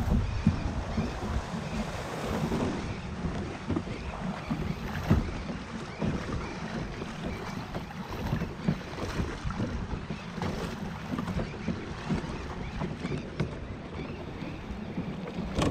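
Wind buffeting the microphone over the sound of sea waves, with a few scattered knocks.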